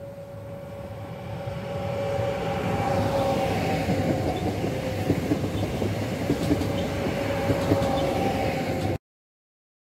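Newag Impuls electric multiple unit passing close by. Its wheel-on-rail rumble swells over the first few seconds under a steady electric whine, and sharp clicks of wheels over rail joints come in the second half. The sound cuts off abruptly near the end.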